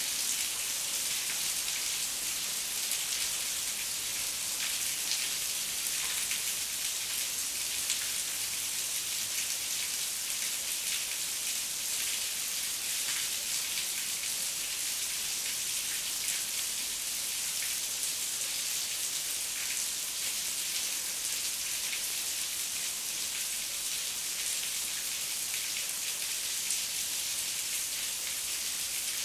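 Heavy rain falling steadily, an even hiss with scattered sharper drop impacts.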